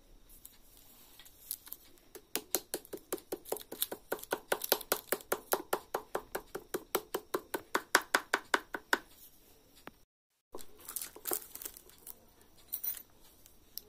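Wooden spatula beating a clay slab down over a plate: a quick, even run of taps, about five a second, lasting several seconds and then stopping. After a short break come a few scattered knocks of handling.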